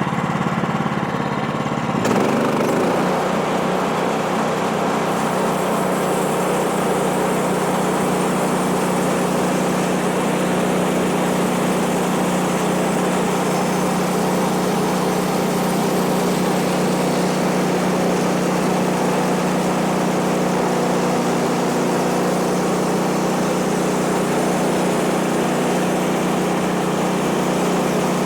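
Woodland Mills bandsaw mill's small gas engine running steadily as the mill saws through a pine log. About two seconds in, the sound grows fuller and a little louder, then holds steady.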